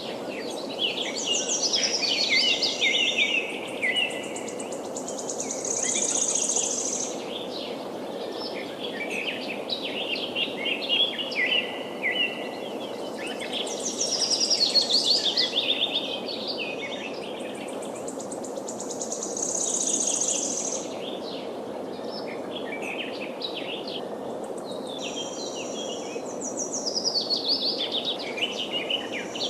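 Several forest songbirds singing and chirping over the steady rush of a flowing river, the bird calls coming in waves every several seconds, with a buzzy high trill now and then.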